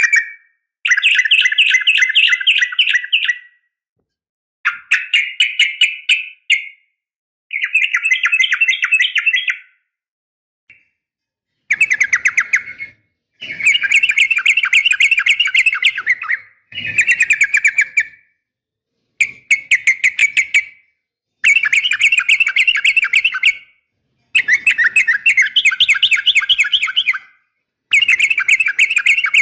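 Yellow-vented bulbul (trucukan) calling, said to be a female's call to males: about ten loud bursts, each one to three seconds of fast, chattering notes, separated by short silences.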